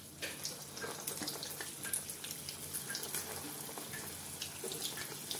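Cabbage manchurian balls deep-frying in hot oil: a steady sizzle with many small crackles and pops as the oil bubbles around the freshly dropped balls.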